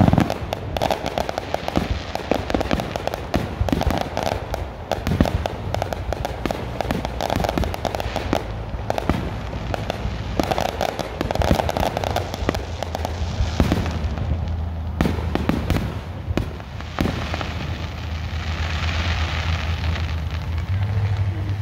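Aerial fireworks shells bursting in quick succession, many sharp reports and crackles overlapping, loudest right at the start. They thin out after about seventeen seconds, leaving a fading crackle over a low steady hum.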